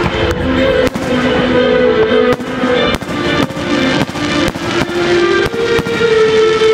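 Aerial firework shells bursting in a series of sharp bangs, over loud music with long held notes.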